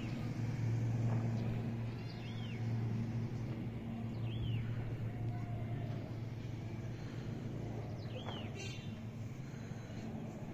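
Distant airliner's engines droning low and steady, easing off slightly, while a bird repeats a short rising-and-falling chirp every two seconds or so.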